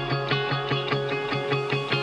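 Background music: plucked guitar-like notes repeating in a quick, steady pattern.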